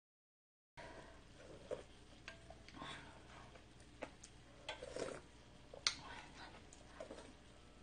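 Faint eating sounds: soup sipped from a wooden spoon, with scattered small clicks and brief mouth noises. The sound cuts in after a short dropout.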